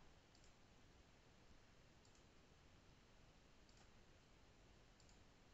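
Near silence: room tone with a few faint computer mouse clicks as questions are deleted from a form.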